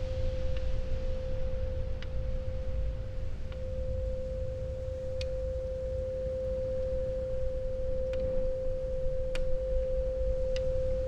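A steady pure tone held at one pitch, with a low rumble beneath it and a few faint clicks scattered at irregular moments.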